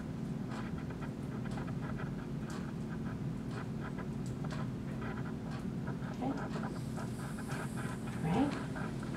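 Steady low hum with soft, irregular clicks and handling noise while a manual blood pressure cuff is slowly deflated. From about seven seconds in, a faint hiss of air comes out of the cuff's release valve as the cuff is let down.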